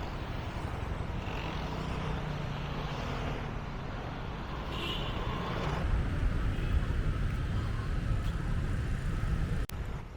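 Street traffic noise: a steady rumble of passing road vehicles, growing louder about halfway through, then cutting out for an instant near the end.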